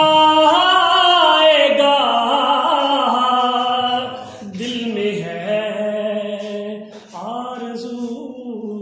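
A man singing a naat, a devotional poem in praise of the Prophet, unaccompanied, drawing out long held notes that slide from pitch to pitch. The singing is loud for the first four seconds or so, then softer.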